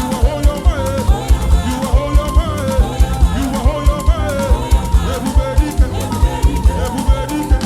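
Live band playing up-tempo African gospel praise music with a fast, steady drum beat and melodic lines over it.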